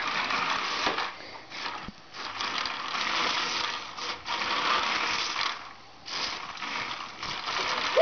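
Remote-control toy truck's small electric motor and gears whirring in runs as it is driven, stopping briefly a few times between runs.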